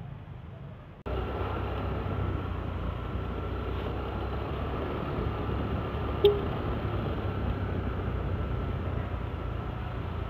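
Motor scooter riding on a city street: steady engine hum with road noise, starting abruptly about a second in after a quieter stretch. A single short click about six seconds in.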